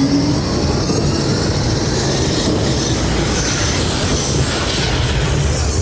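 Test Track ride vehicle rumbling and rattling along its track through the rough off-road section, a steady loud rumble with some hiss above it.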